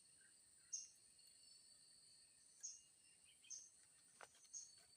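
Faint outdoor insect drone, a steady high-pitched buzz, with short high chirps recurring about once a second and a single click about four seconds in.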